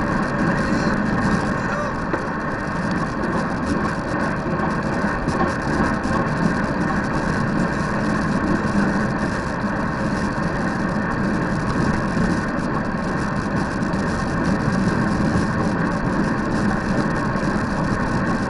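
Steady wind rush and road noise on the microphone of a camera mounted on a road bicycle riding at speed.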